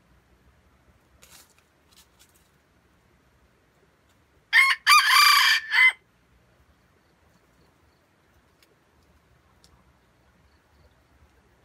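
Red junglefowl rooster crowing once, about a second and a half long, opening with a brief note followed by a longer drawn-out part.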